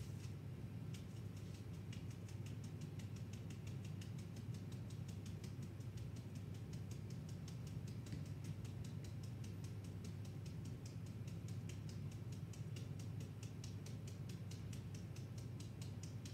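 Handheld metal flour sifter being worked, its mechanism clicking rapidly and evenly as powdered sugar and cornstarch pass through the mesh; the clicking grows stronger in the second half. A low steady hum lies underneath.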